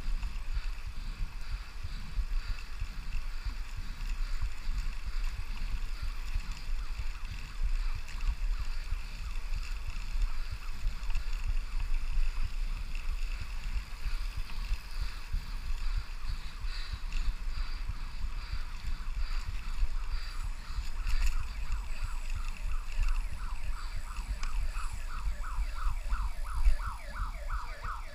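Wind buffeting the microphone of a moving bicycle. From about two-thirds of the way in, an ambulance siren sounds in a fast repeated yelp, growing louder toward the end.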